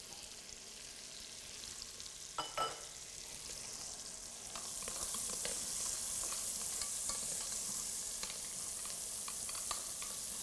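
Chopped onions sizzling in hot rendered bacon fat in a stainless steel pot as they are stirred, with light clicks of the utensil against the pot. The sizzle grows louder about halfway through as the onions start to fry.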